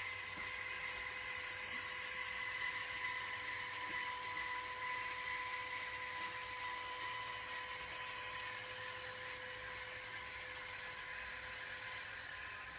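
LitterMaid self-cleaning litter box's electric rake motor running, a steady whine at one even pitch as the rake travels along the litter tray.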